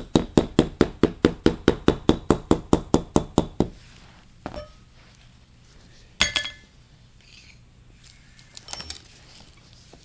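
Hammer rapidly tapping a metal punch, about six blows a second for nearly four seconds, worked around in a circle to drive a bearing out of a transmission part. Then a few separate metal clinks and knocks, one with a short ring.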